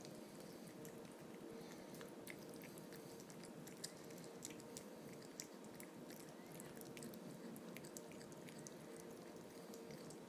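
Savannah cat chewing a chicken drumstick: faint, irregular crunching clicks of bites on meat and bone, over a low steady hum.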